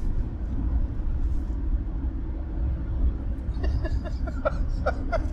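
Steady low road and engine rumble inside a moving car's cabin. About three and a half seconds in, someone laughs in a quick run of short sounds.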